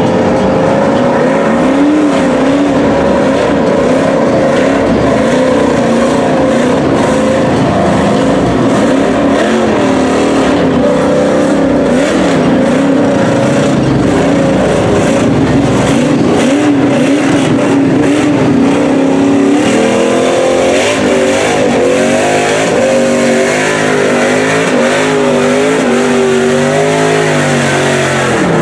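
Lifted mud truck on giant tractor tires, its engine revving up and down as it churns through water and mud, with splashing spray.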